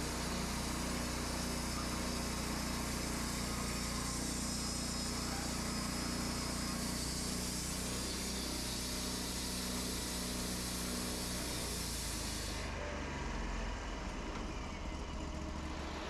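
Wood-Mizer portable band sawmill running steadily, its engine working under load as the band blade saws through a white oak cant, with a hiss over the engine note. About three-quarters of the way through, the hiss drops away and the engine carries on alone.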